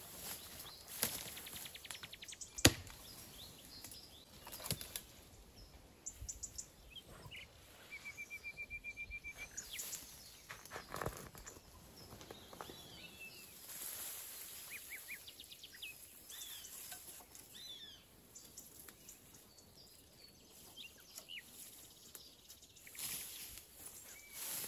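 Woodland birds calling, with high chirps and one fast, even trill of about fifteen notes lasting just over a second. Scattered sharp knocks and snaps are heard, the loudest a few seconds in.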